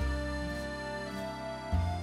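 Instrumental background music with held chords over a deep bass line; a new bass note comes in near the end.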